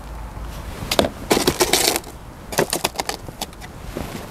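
Compost mixed with perlite being scooped from a plastic tub and tipped into small square plastic pots with a plastic scoop: a run of short rustles, scrapes and clicks between about one and three and a half seconds in.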